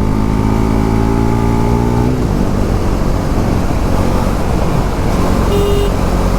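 Motorcycle engine under hard acceleration, its pitch climbing slightly, then a gear change about two seconds in, after which wind rush over the microphone mixes with the engine. A short beep comes about five and a half seconds in.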